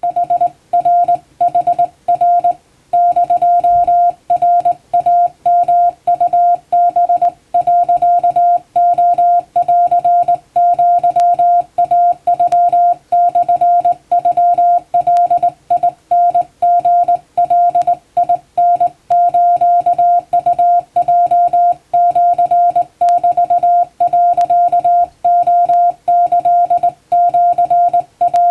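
Japanese (wabun) Morse code sent by hand on a telegraph key: a single steady mid-pitched beep keyed on and off in short dots and longer dashes, with brief gaps between characters.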